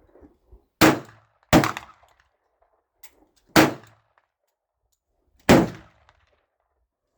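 Glock 41 pistol firing .45 ACP, four loud shots: the first two under a second apart, then two more about two seconds apart, each with a short ringing tail.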